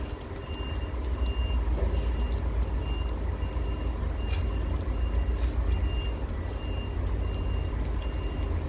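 A truck's reversing alarm beeping steadily, one high tone about three times every two seconds, over the low rumble of a heavy diesel engine.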